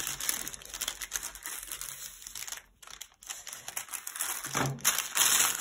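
Scissors cutting through a paper gift bag, with the paper crinkling and rustling as it is handled, louder near the end.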